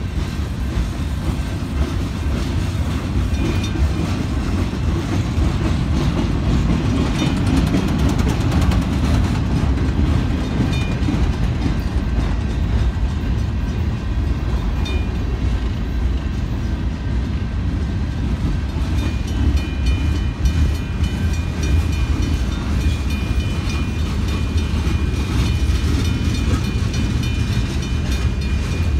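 CSX freight cars rolling slowly past close by: a steady low rumble of steel wheels on the rails.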